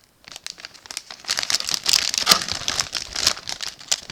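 Food packaging crinkling and rustling as it is handled and turned over, in a dense run of crackles that builds after a brief pause and is busiest in the middle.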